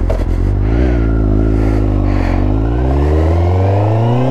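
Motorcycle engine running at low revs, then revving up steadily in pitch over the last second or so as the bike accelerates.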